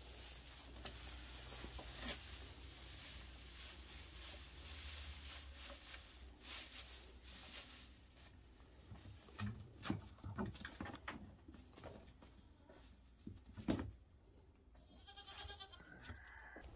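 Dry hay rustling and crackling as an armful is gathered and carried, then a few scattered knocks, and a goat bleating near the end.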